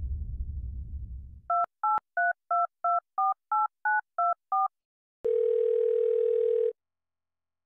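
A phone number dialled on a touch-tone keypad: ten short two-tone beeps at about three a second, after a low rumble fades out. Then the call connects to a ringback tone: one steady ring about a second and a half long.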